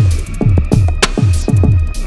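Electronic dance music with a fast, steady kick drum, about four beats a second, with a sharp snare-like hit about every second and a quarter and ticking hi-hats over it.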